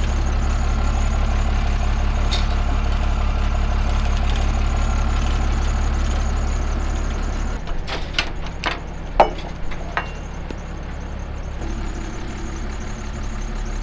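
Diesel truck engine idling with a steady, even rumble; about halfway through it quietens and a short run of sharp clanks and knocks follows.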